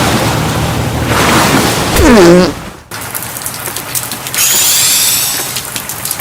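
Cartoon sound effects: a loud rushing hiss ending in a quick falling pitched glide, cut off abruptly about three seconds in. It is followed by a softer rain-like hiss with scattered ticks and a brief bright crackle.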